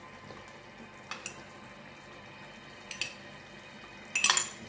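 Cream sauce simmering gently in a stainless steel pan, with a few short scrapes of a wooden spatula stirring it, about one, three and just after four seconds in, the last the loudest.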